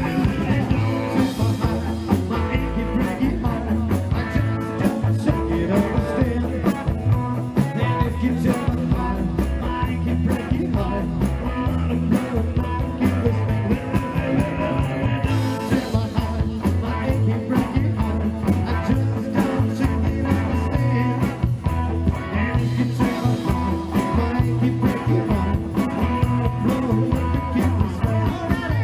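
Live rock 'n' roll band playing through the stage PA, electric guitar over a bass line and a steady beat.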